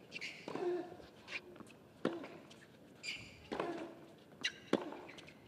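Tennis rally on a hard court: the ball is struck back and forth, several sharp racket hits about a second and a half apart, some with a player's grunt. Shoe squeaks come near the start and again about three seconds in.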